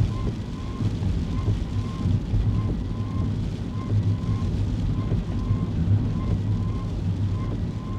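Kei car interior: steady low engine and road rumble while driving, with a soft electronic beep repeating about one and a half times a second.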